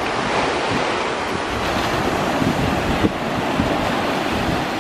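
Wind buffeting the microphone over a steady, even rushing noise.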